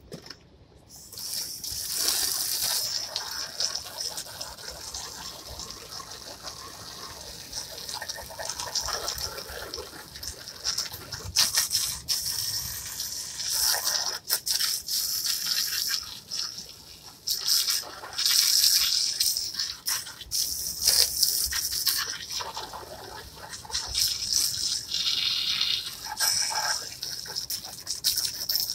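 Garden hose spray nozzle jetting water onto white plastic patio chairs: a hissing spray that swells and fades in bursts as the water stream is played over the chairs.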